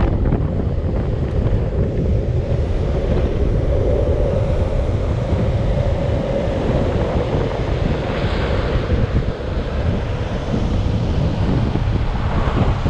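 Strong wind buffeting the microphone at downhill longboarding speed, over a steady rumble of skateboard wheels rolling on asphalt.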